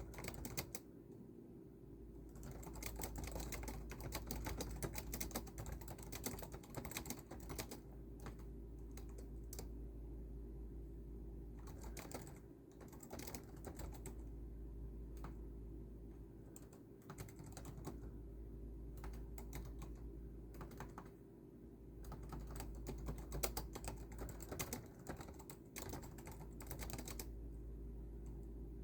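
Typing on a keyboard: fast runs of keystroke clicks broken by short pauses, over a steady low hum.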